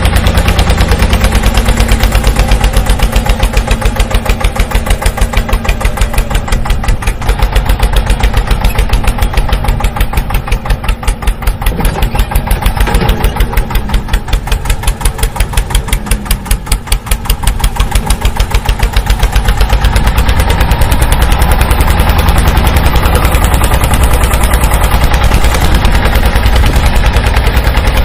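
A tractor engine chugging steadily with a rapid, even knock, like a single-cylinder diesel.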